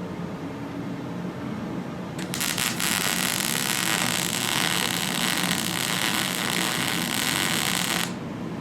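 Welding arc laying a bead on a turbo hot side flange: a few crackles as the arc strikes about two seconds in, then a steady loud sizzle for about six seconds that cuts off suddenly when the arc is broken. A low steady hum sits under it.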